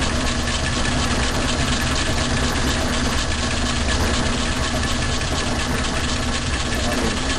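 Logan metal lathe running steadily with a flycutter spinning in the chuck, taking a light milling cut about five thousandths deep on metal held in a vise; a constant machine drone with a steady hum and no pauses.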